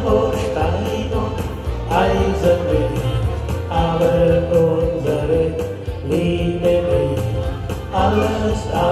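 Live Schlager music from a Yamaha Tyros arranger keyboard playing its automatic backing, with sustained chords that change every couple of seconds over a steady bass and beat.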